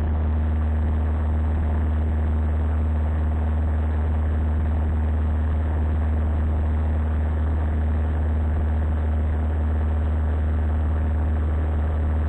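Steady drone of a Cessna 172's piston engine and propeller in flight, heard inside the cockpit, holding an even pitch and level throughout.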